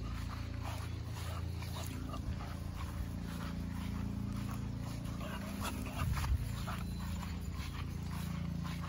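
Puppy moving about on a lawn with a ring toy in its mouth, making small dog sounds and faint ticks and rustles over a steady low hum. A short louder bump comes about six seconds in.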